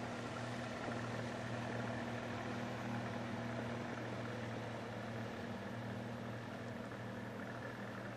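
Boat motor idling with a steady, even low hum.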